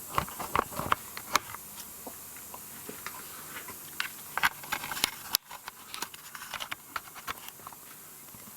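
Scattered light clicks, taps and scrapes of hands handling engine parts over a faint steady hiss, as the oil dipstick is pulled out to check the level after an oil change.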